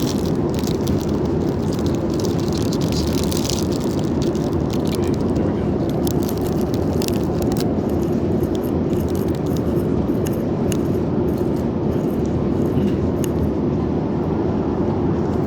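Steady drone of an airliner cabin in flight, with light clicks and rattles from handling the snack's packaging and cutlery, busiest in the first few seconds.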